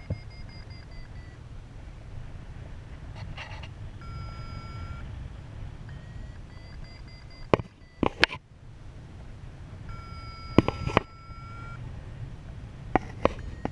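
Wind rumbling on the microphone of a paraglider in flight, with a flight variometer sounding steady tones about four seconds in and again for over a second near the end. A few sharp clicks come in the middle.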